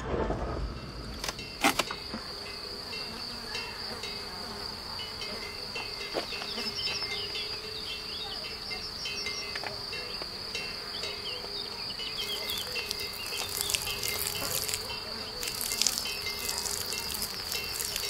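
Insects chirping in a steady high trill, with a lower steady hum beneath it and a few sharp clicks, the loudest about two seconds in.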